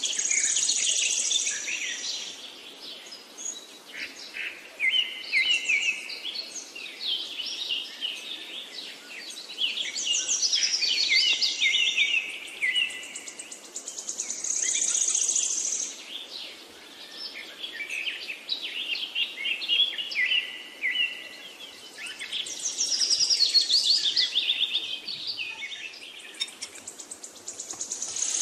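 Birds chirping and singing in quick, overlapping phrases that swell and fade every few seconds.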